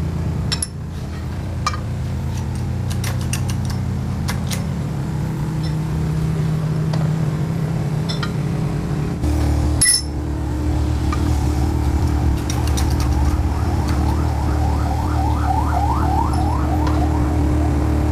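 Motor of a wheel-straightening press running steadily, its hum changing pitch about nine seconds in, with light metallic clicks and taps from the wheel work. Near the end comes a quick run of short rising squeaks.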